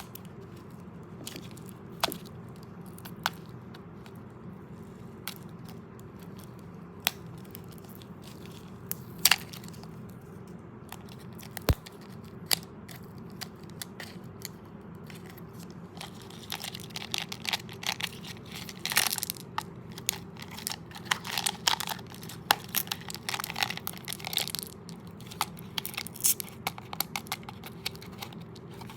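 Close-miked crunching of candy-coated chocolate M&M's being chewed, with sharp, scattered cracks for the first half, then dense, rapid crunching from about halfway on, over a steady low hum.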